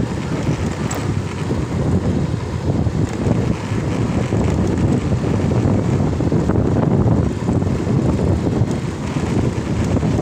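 Wind buffeting the microphone of a moving motorcycle, a loud, uneven low rushing, with the motorcycle running underneath.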